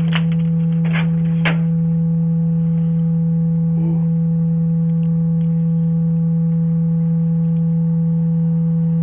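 Loud, steady, unbroken hum on one low pitch with fainter higher overtones, and a few sharp clicks within the first second and a half.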